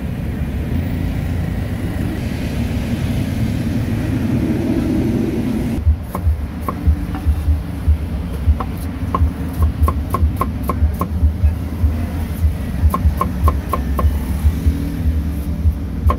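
Steel cleaver slicing cucumbers on a wooden chopping block: sharp knocks, each with a short ring, about two or three a second in runs, starting about six seconds in. Before that there is only a steady low background rumble.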